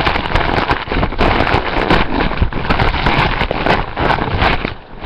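Loud, dense crinkling and rustling of gift packaging being handled right at the microphone, a continuous crackle of many small clicks.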